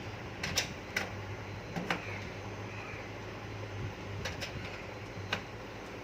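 Scattered sharp clicks and knocks of cable plugs being pushed into the connectors of a desktop computer, over a low steady hum.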